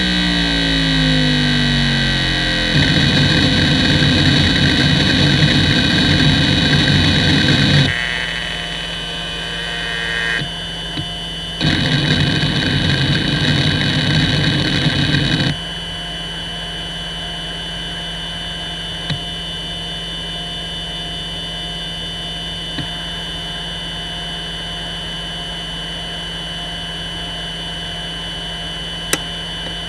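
Hitachi DK31BJ-36LC 10,000 rpm SCSI hard drive seeking rapidly during a seek-time benchmark, a dense stream of head-actuator noise that eases for a few seconds partway through. About sixteen seconds in the seeking stops and the drive idles with a steady spindle whine, its bearings in good shape, broken by a few single faint ticks.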